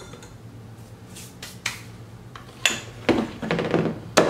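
Kitchen utensils handled on a counter: a few light clicks, then louder clatter and knocking in the second half, over a low steady hum.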